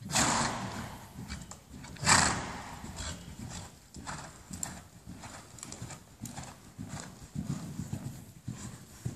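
Hoofbeats of a ridden 14.2 hand pony moving round a sand arena, a run of low, even thuds. There are two louder bursts, one at the start and one about two seconds in.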